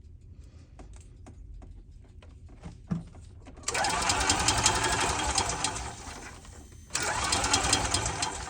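A few faint clicks, then an EZGO gas golf cart's engine cranking over twice without starting. The first crank lasts about three seconds; the second starts just after it ends. The ignition coil is unplugged, so the engine cannot fire.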